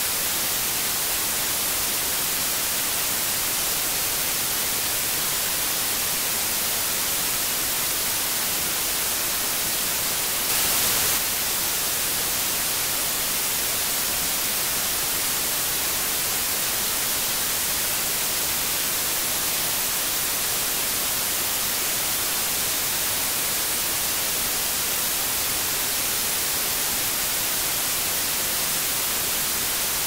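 Steady white noise hiss, even and unchanging, with one brief, slightly louder patch about ten seconds in.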